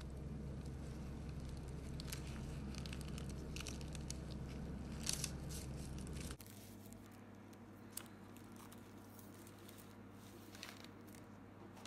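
Flaky, many-layered baked pastry (saya çöreği) being pulled apart by hand: its crisp crust crackles and the thin layers tear, in faint scattered crackles with a louder crunch about five seconds in. A low steady hum underneath drops away a little past halfway.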